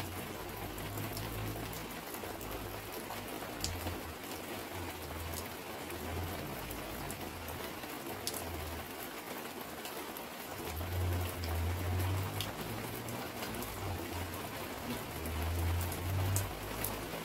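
Steady rain falling, with scattered drops ticking close by and a low rumble that swells a few times.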